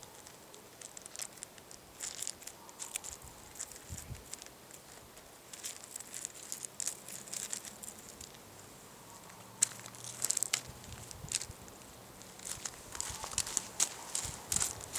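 A small child's light footsteps crunching and crackling on dry ground, with irregular scuffs and small crackles between steps.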